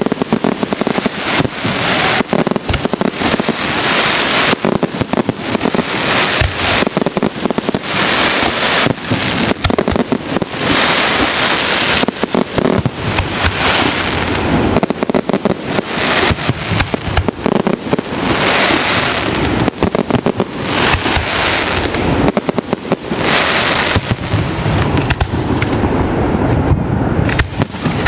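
Fireworks display: dense, continuous bangs of aerial shells with crackling and hissing bursts overlapping, easing off slightly near the end.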